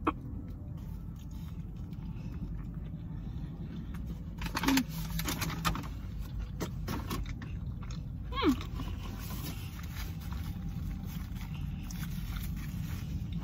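Paper fast-food bag and wrapper crinkling as they are handled, in short bursts about four and a half and eight and a half seconds in, over a steady low rumble inside a car.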